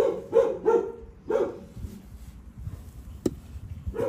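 A dog barking off-screen: four short, quick barks in the first second and a half, then one more near the end.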